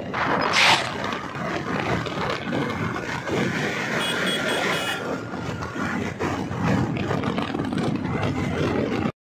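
Steady road and wind noise from a vehicle driving along a road, with a louder rush just under a second in. A brief run of high, evenly spaced pips comes about four seconds in.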